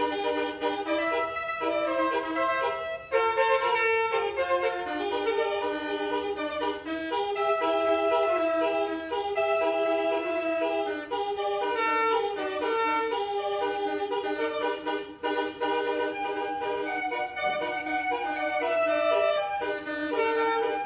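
Basuri telolet multi-tone bus horn playing a melody of stepped, trumpet-like notes, several tones at once, with brief breaks about 3 and 15 seconds in.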